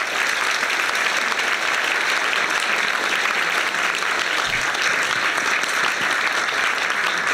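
Audience applauding: sustained, steady clapping from a roomful of people.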